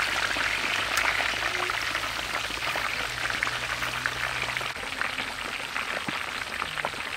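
Slabs of pork belly deep-frying in a wok of hot oil: a steady, dense sizzle full of small crackles and pops.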